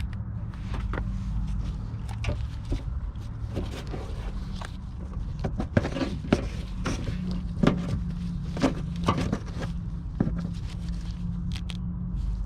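Scattered clicks and knocks of hands and parts being handled around a car's headlight and engine bay, the sharpest in the middle stretch, over a steady low rumble.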